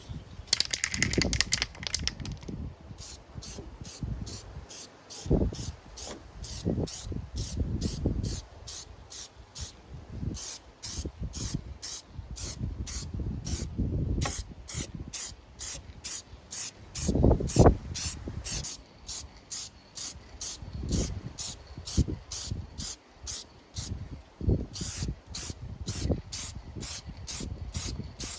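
Aerosol spray-paint can (rattle can) spraying a coat of paint: a long hiss at first, then a steady run of short hisses about twice a second. Irregular low thumps and rumbles sound underneath.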